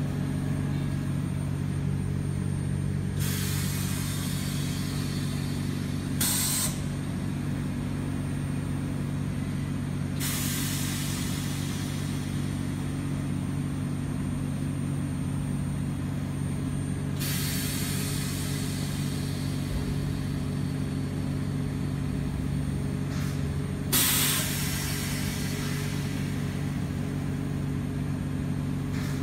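Oxygen-fed ozone generator setup running: a steady low mechanical hum, with hissing releases of gas over it, two of them short and sharper, about six seconds in and near the end.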